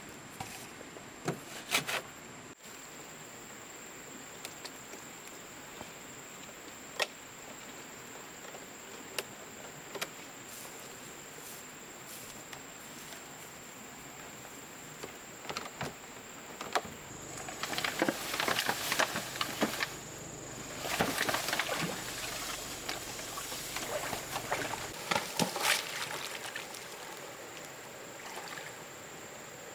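Steady high insect drone over the outdoor background, with scattered sharp clicks and knocks. From just past halfway there are several seconds of louder splashing or rustling handling noise, which then fades back.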